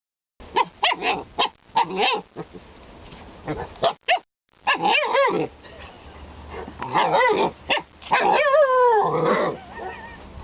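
Alaskan Malamute vocalizing in a series of short, pitch-bending yips and woo-like barks, ending with a longer call that slides down in pitch.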